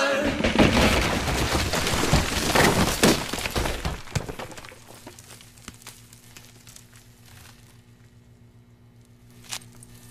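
Sound effect of cracking and shattering, like breaking glass, loud at first and fading away over about four seconds, followed by a faint low hum with a few small clicks.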